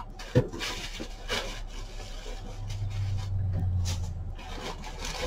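Packaging and items being handled and rummaged through in a cardboard box: rustling and rubbing, a sharp knock about half a second in, and a low rumbling rub in the middle.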